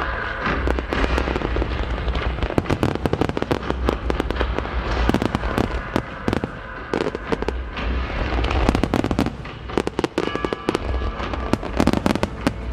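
Fireworks barrage: many shells bursting in fast succession, dense bangs and crackle, with a short lull about ten seconds in.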